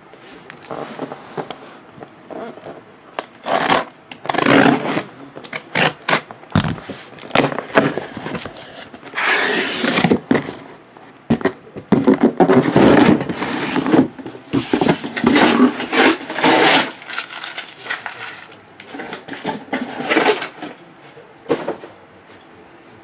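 A cardboard shipping case being opened and emptied: tape torn, flaps pulled back, and shrink-wrapped boxes slid out and set down, in irregular bursts of scraping, tearing and rustling.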